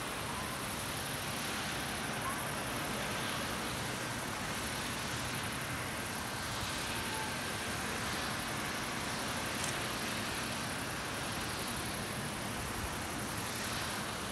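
Steady outdoor background noise, even in level throughout, with a few faint short chirps scattered through it.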